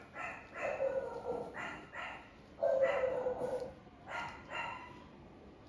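A puppy cries out in pain about five times, with short yelps and longer drawn-out cries, as prolapsed tissue is pushed back into its rear by hand.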